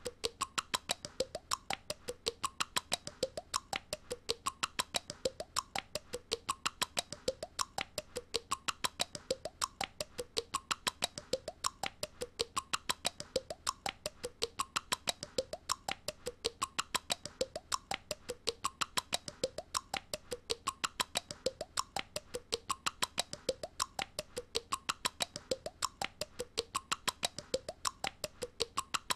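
A young girl's clicking sound made with the mouth, repeated over and over in a loop: sharp, even clicks about four a second with a short pitched pattern that repeats about once a second.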